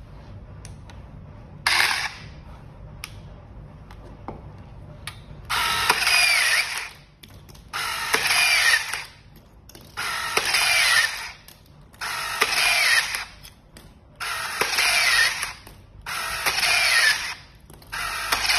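Runsun RT528 cordless rebar tying tool tying one wire tie after another. Each tie is about a second and a half of motor whirring and gear ratcheting with a rising and falling whine as the tool feeds, wraps and twists the wire. The ties repeat about every two seconds, six of them with a seventh starting at the end, after one short burst of machine noise about two seconds in.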